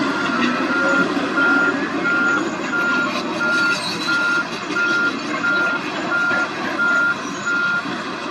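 Wheel loader's reversing alarm beeping steadily a little under twice a second over its running diesel engine. The beeps stop shortly before the end.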